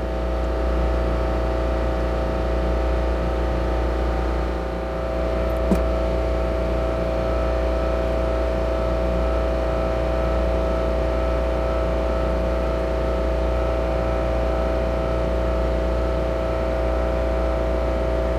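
Steady engine-room machinery noise: a deep hum with several steady tones above it from machinery running in the space. There is one light click about six seconds in.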